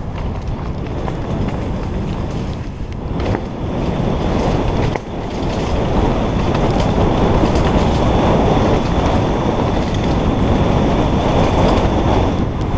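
Downhill mountain bike rattling and clattering over a rough dirt trail at speed, with wind rushing over a helmet-mounted camera's microphone: a steady, loud, rough rumble that dips briefly about five seconds in.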